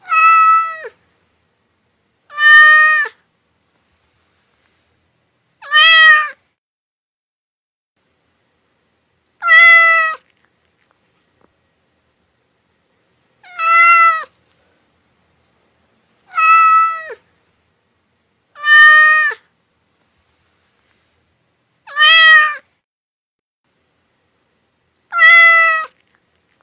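A cat meowing nine times, with single meows spaced a few seconds apart. Each is a short call that dips in pitch at the end.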